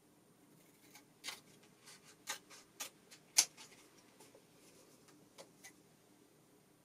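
Scissors snipping through a laminated sheet of printed temporary tattoos: a handful of sharp, irregularly spaced snips, the loudest about three and a half seconds in.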